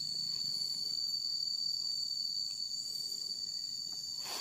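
Insects trilling steadily in one high, unbroken tone, with a brief rustle near the end.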